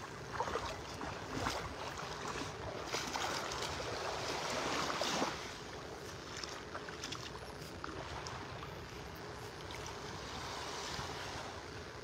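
Small, gentle waves lapping at the sandy shoreline, with wind rushing over the microphone. It is louder for the first five seconds, then drops to a softer, steady wash.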